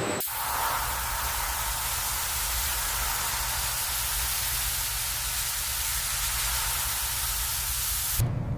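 A steady, even hiss with a low hum underneath, starting suddenly at the opening and cutting off abruptly near the end.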